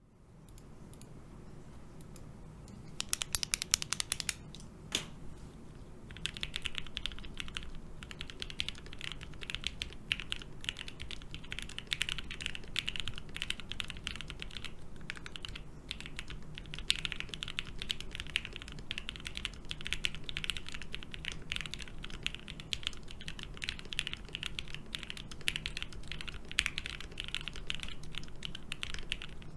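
Typing on a mechanical keyboard with lubed and filmed Gateron Black Ink linear switches on a polypropylene plate, under GMK keycaps. A quick run of sharp clicks comes about three seconds in, then steady, continuous typing from about six seconds on.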